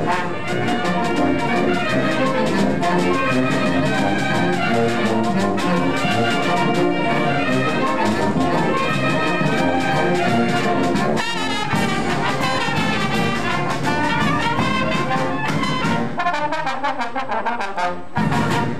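Oaxacan Mixe brass band (banda de viento) playing a piece, trumpets and trombones carrying held melodic notes over steady percussion.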